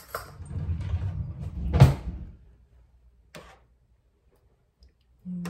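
Kitchen handling noise: a rough scraping rumble for about two seconds that ends in a sharp clunk, then a single faint click.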